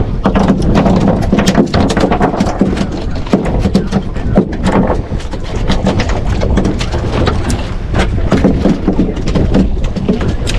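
Rapid, irregular knocks and thumps, hard strikes on a boat's deck or hull, over steady wind noise on the microphone and boat rumble.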